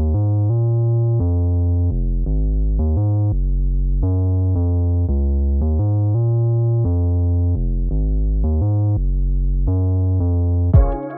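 Relaxing instrumental background music: keyboard chords with a strong bass, the chords changing every half second or so. Just before the end a new, brighter section comes in with a sharp hit.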